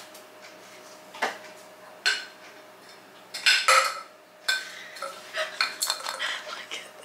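Glass and kitchenware handled at a kitchen counter: a string of separate clinks and knocks as an ice sphere is put into a drinking glass, busiest from about halfway through.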